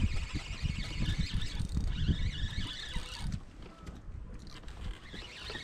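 Wind buffeting the microphone: an uneven, gusty low rumble with a hiss above it, easing off about three seconds in.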